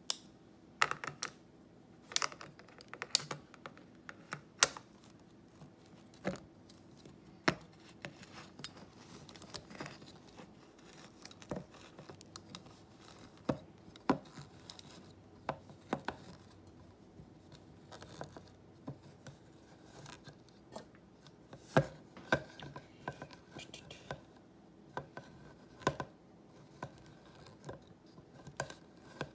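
Irregular metallic clicks and scrapes of a hand tool working at the lid of a tin can, trying to cut it open.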